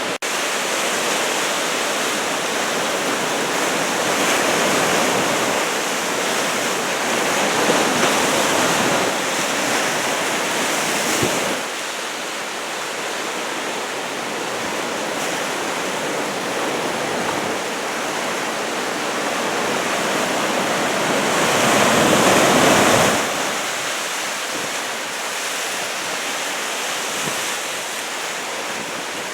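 Surf from a two-metre typhoon swell breaking, a steady loud rush of water. It swells twice, around four to eleven seconds in and again around twenty-two seconds, each time cutting off sharply as the wave finishes breaking.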